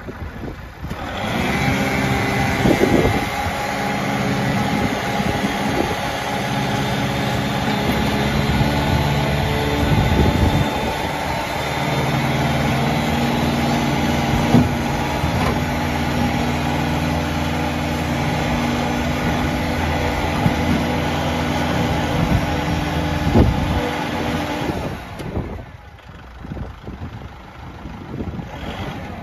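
Kubota MX5200's 54 hp diesel engine starting about a second in, then running steadily at idle with a few brief rises in speed. It falls away suddenly near the end.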